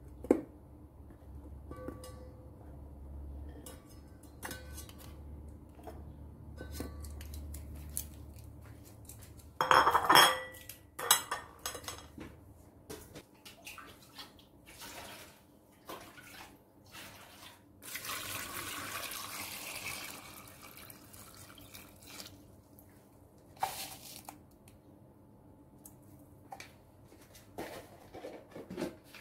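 Metal tongs clinking and knocking against a stainless steel pot as rings of bitter gourd are set in it, with a louder clatter about ten seconds in. About eighteen seconds in, water is poured into the pot for around two seconds.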